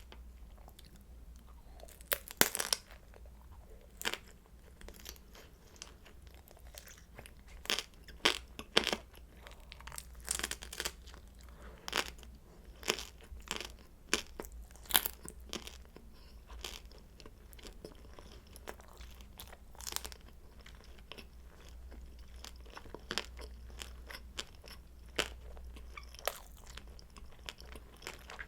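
Close-miked chewing of crispy pan-fried kimchi dumplings: sharp crunches of the fried wrapper between softer chewing. The crunches come thickest in the first half and thin out later.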